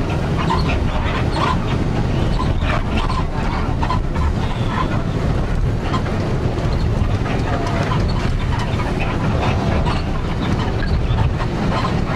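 Steady loud rumble of a moving vehicle, with short rattles and clatter throughout.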